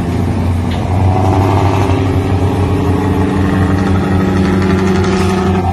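A boat's engine running with a steady low drone. About a second in, a steady pitched tone joins it and cuts off suddenly near the end.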